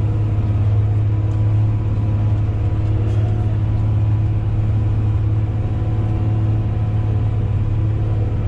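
Crawler bulldozer's diesel engine running steadily under load with a deep, constant hum while the machine cuts and spreads sandy fill.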